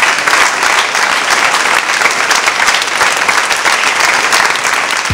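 A seated audience applauding steadily, with dense, even hand-clapping that cuts off suddenly at the end.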